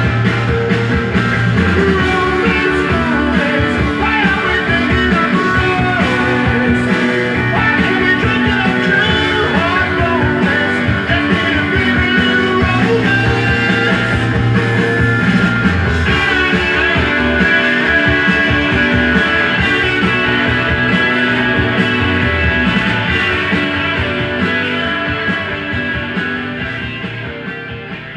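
Rock music with guitar playing from a vinyl record on a Dual 1257 turntable, fading out over the last several seconds as the track ends.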